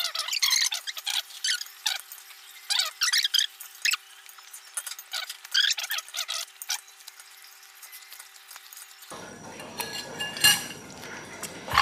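Spoon and fork clinking and scraping against ceramic bowls while noodles are eaten, in many short, sharp, irregular strokes. About nine seconds in a steady hiss comes in, with a sharp knock shortly after.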